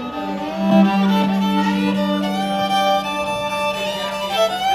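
Fiddle playing through the PA for a sound check: a steady low note held throughout under a changing melody above it.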